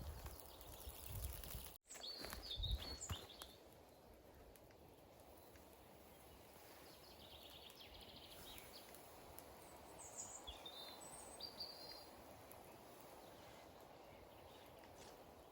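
Quiet forest ambience with small birds giving short high chirps now and then, most clearly near the start and again about two-thirds of the way in. A few low knocks sound just after an abrupt break about two seconds in.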